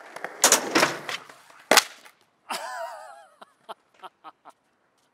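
Skateboard wheels rolling on rough concrete, then a sharp pop and loud cracks of the board striking the ground, about a second apart. A short wavering shout follows, then a few light clicks and taps.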